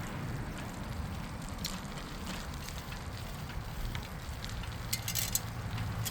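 Bicycle rolling along a path: steady tyre and wind noise with light scattered clicks, and a short burst of clicking rattle about five seconds in.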